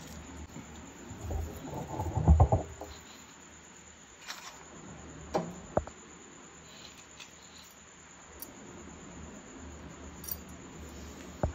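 Kitchen handling noise: a short rattling clatter about two seconds in, then a few sharp single clicks, over a faint steady hum.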